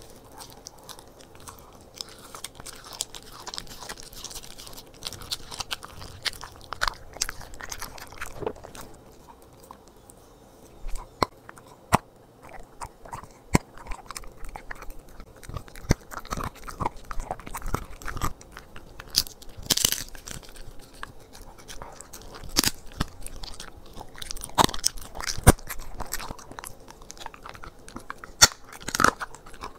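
Corgi chewing and crunching its raw-food meal: wet chewing broken by many irregular sharp crunches, which are loudest in the second half.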